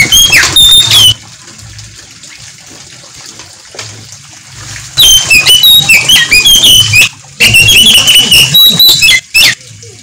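Oriental magpie-robin (kacer) singing: loud bursts of quick, varied whistles and chirps. The first burst breaks off about a second in, and after a pause of about four seconds the bird sings two longer bursts.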